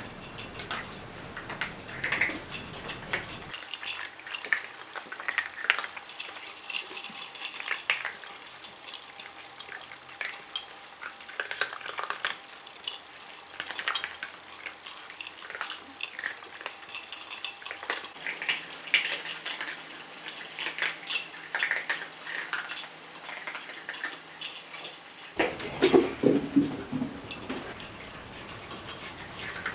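Several cats eating dry kibble from small ceramic bowls: a steady, irregular patter of crunching and of kibble and teeth clicking against the bowls.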